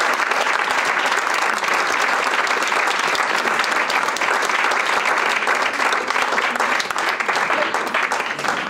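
Audience applauding: a dense, steady patter of many hands clapping, starting to thin out near the end.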